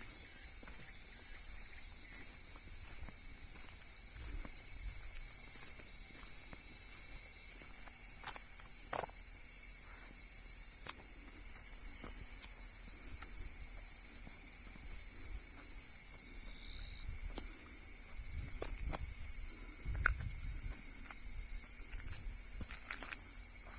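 Insects droning in a steady, high-pitched chorus, with a few faint clicks and a brief low thump about twenty seconds in.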